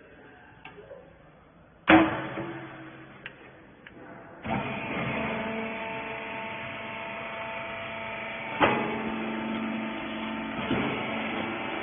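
A loud bang with a short ringing tail, then about four and a half seconds in the wiper bagging baler's motor and hydraulic pump start up and run steadily, a hum of several held tones broken by a couple of knocks.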